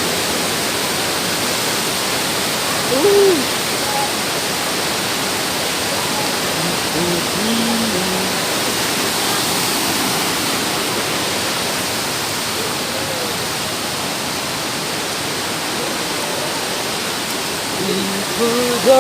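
Waterfall rushing in a steady, even roar of falling water, with a few brief faint voices now and then.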